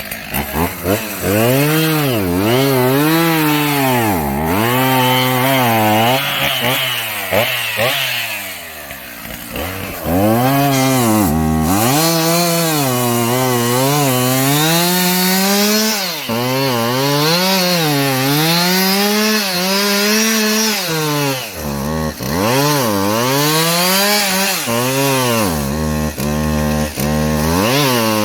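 Chainsaw running and cutting, its engine revving up and falling back again and again, with brief drops in throttle between cuts.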